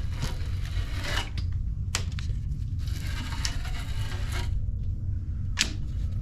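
Old rubber spline being pulled out of a screen-door frame's groove: rustling, scraping pulls with a few sharp clicks, over a steady low rumble.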